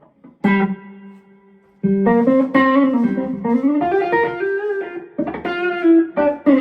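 Eastman Romeo SC hollow-body electric guitar played through a slight overdrive breakup with reverb: a chord struck about half a second in rings out, then a run of single notes is played from about two seconds in.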